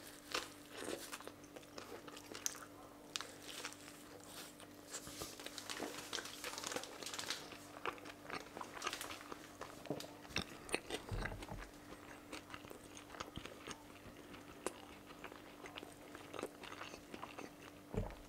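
Eating a chicken shawarma: irregular soft crunching bites and chewing mouth sounds, with a faint steady hum underneath.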